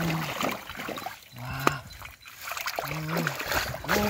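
Hands sloshing and squelching through thick muddy water, with wet splashes and trickles as the mud is stirred and lifted, as when groping for catfish by hand. A short low hum recurs several times.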